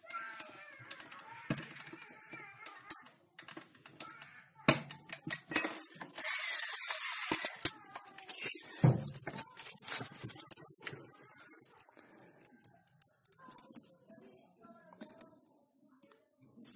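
Handling noise: scattered clicks, knocks and light metal clinks, with a stretch of rustling hiss from about six to ten seconds in.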